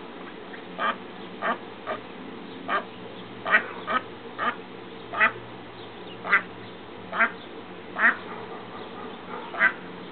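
A mallard hen quacking: about a dozen short single quacks, irregularly spaced, roughly one every second.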